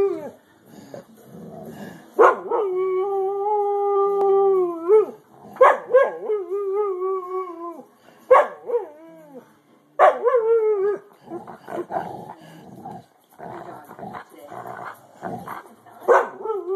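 A dog howling in a series of long, pitched calls, some held steady and some wavering, each starting with a sharp yelp. Between the howls in the later part come rougher, shorter grumbling sounds.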